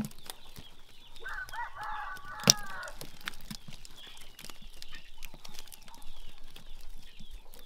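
A rooster crowing once, starting about a second in and lasting about a second and a half, over scattered light clicks and taps, with a sharp knock at the start and another about two and a half seconds in.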